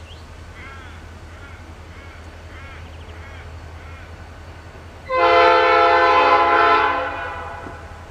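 Approaching heritage train's locomotive horn, one blast of several steady tones together lasting about two seconds, starting abruptly about five seconds in and then fading away. Birds chirp faintly before it.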